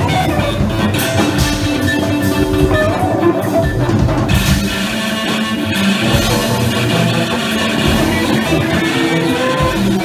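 Live experimental ensemble music: a drum kit, an electric guitar and keyboard electronics playing together in a dense, loud, continuous wash of sustained tones and noise, with low drum thumps recurring every second or so.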